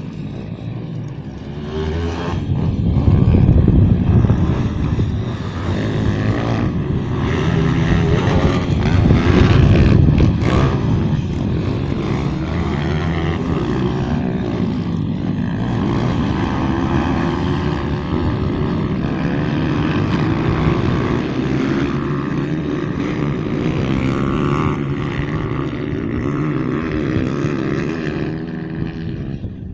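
Several pit bike engines revving up and down as the bikes race, louder around three and ten seconds in, with a steady drone of bikes the rest of the time.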